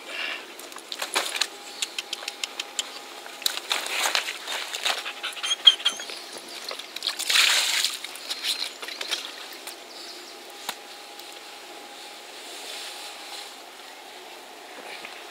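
Water splashing and trickling in irregular spatters, with one longer splash about seven and a half seconds in, then settling to quieter lapping.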